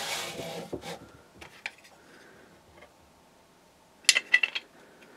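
A 3D-printed plastic carriage with linear bearings rubbing along steel shafts as it is handled, then a quick cluster of sharp metallic clinks about four seconds in as it comes off the rods.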